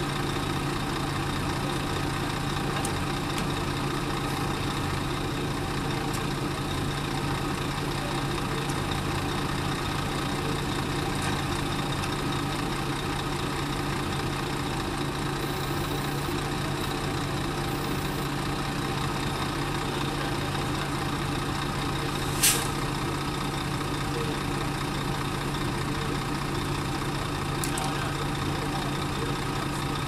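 Heavy diesel engine idling steadily, with a single sharp clank about three-quarters of the way through.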